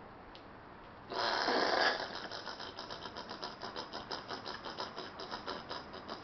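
Angry Australian possum calling. About a second in there is a harsh, loud hiss-like burst. It runs straight into a long, rapid, pulsing chatter.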